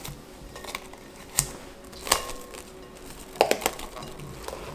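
Plastic cling film crinkling and crackling as it is stretched over a glass mixing bowl and pressed onto the rim, in a few sharp crackles, the loudest cluster about three and a half seconds in.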